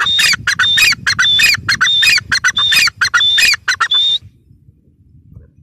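Grey francolin (teetar) calling: a rapid run of loud, repeated harsh phrases, each with a high held note, about two a second, stopping about four seconds in.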